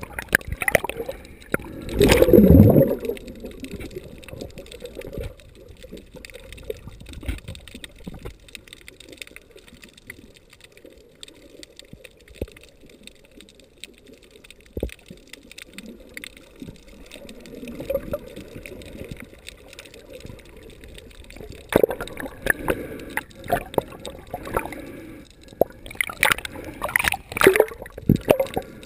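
Muffled underwater water noise: gurgling and sloshing, with a loud rush about two seconds in and a run of splashy bursts near the end.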